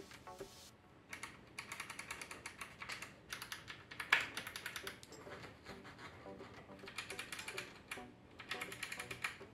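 Front-panel lever switches and knobs of a Kenwood stereo receiver being worked back and forth, making rapid runs of small plastic-and-metal clicks in bursts, with one louder click about four seconds in. The controls are being exercised to spread contact cleaner over corroded switch contacts and potentiometer tracks.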